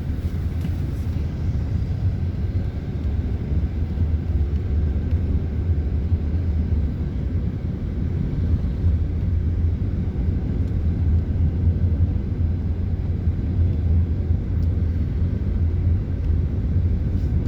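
Steady low rumble of a vehicle on the move, holding constant throughout with no clear changes.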